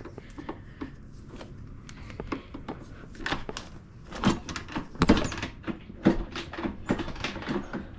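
Irregular clicks, knocks and clanks of hand tools being handled, with a louder knock about five seconds in.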